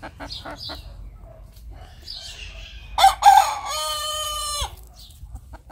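A rooster crows once, about three seconds in: a harsh start and then a long held note that breaks off. Soft clucking of hens comes before it.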